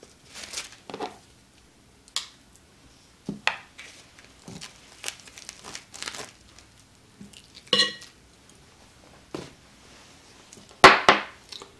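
Plastic food packaging of raw chicken thighs crinkling as it is handled and opened, with the thighs laid onto a ceramic plate and a few light clinks of the plate. Short, scattered sounds, the loudest a rustle near the end.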